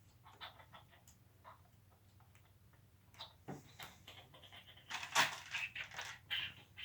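Plastic Lego Technic pieces clicking and rattling as they are handled, a few scattered clicks at first and a busier run of rattling about five seconds in.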